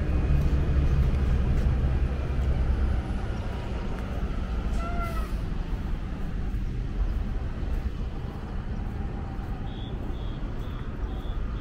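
Street traffic: a heavy vehicle engine rumbling loudly, easing off after about three seconds into a steady lower traffic rumble. A short squeal rises and falls about five seconds in, and near the end a regular high beeping starts, about two beeps a second.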